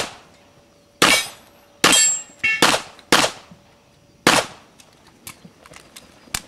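Handgun fired about six times in quick, uneven succession over some three seconds, each shot with a short echoing tail. Then lighter, quick footsteps of a person running on grass.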